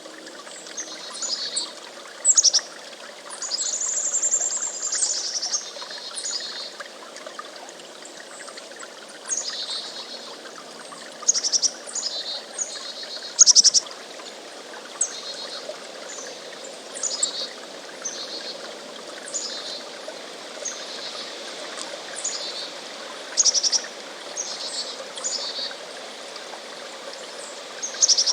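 Chickadees calling: repeated short, high call notes and buzzy runs of 'dee' notes, coming every second or two, over a steady low hiss.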